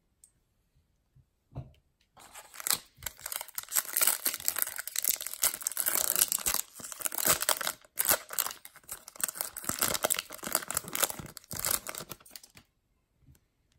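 Foil wrapper of a Topps Chrome baseball card pack being torn open and crinkled by hand: a dense crackling that starts about two seconds in and stops about a second before the end.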